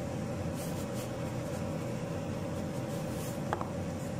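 Steady hum and hiss of a pan of rice and noodles cooking in water on the stove, with a few faint light taps.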